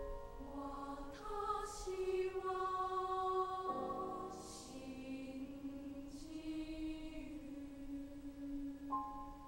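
Junior-high school choir singing a slow, soft, sustained phrase with held notes and hissing 's' consonants. A piano comes back in near the end.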